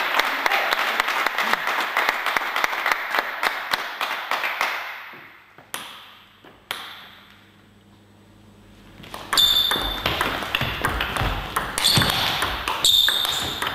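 A table tennis rally: the celluloid ball clicking off the bats and the table in a quick back-and-forth, starting about two-thirds of the way in. Before it, the general noise of the hall fades out over the first few seconds, and then a couple of single ball bounces are heard while the server gets ready.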